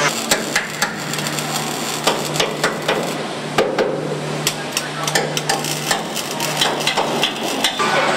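Factory floor on a car-body assembly line: irregular sharp metallic clicks and knocks, several a second, over a steady machine hum.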